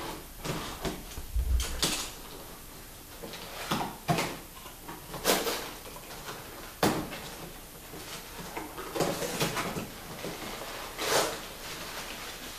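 A cardboard box being opened by hand: a box cutter slitting the packing tape, then the cardboard flaps being pulled apart and crumpled packing paper rustling near the end. An irregular string of short scrapes, rips and a few sharp knocks.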